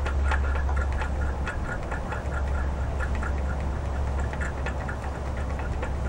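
Tecumseh horizontal-shaft small engine running roughly with a steady low hum and uneven ticking and rattling. The owner puts the poor running down to getting too much gas, so that it floods.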